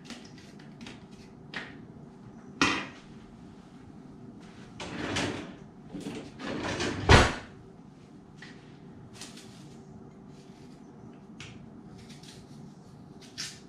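A kitchen drawer slid open and rummaged through, then shut with a loud thud about seven seconds in. A few light knocks from work at the counter come before it.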